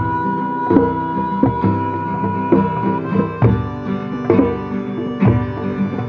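Hurdy-gurdy playing: steady drone strings under a melody on the keyed strings, with a held high note that changes about halfway through and recurring sharp percussive strokes.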